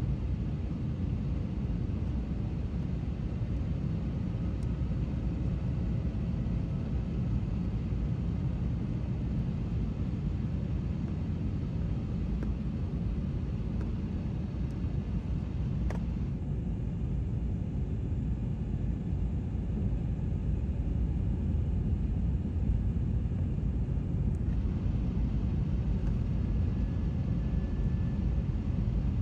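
Steady low rumble of jet engines and rushing air, heard from inside an airliner's cabin as it descends on approach to landing.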